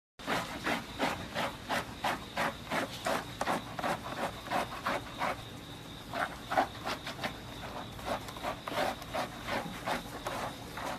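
A small hand-held bath brush scrubbing a golden retriever puppy's wet, lathered fur in quick rhythmic strokes, about three a second, with a brief let-up about halfway.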